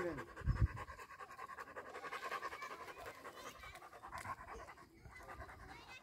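A dog panting rapidly with its tongue out, a fast even run of breaths. There is a brief low thump about half a second in.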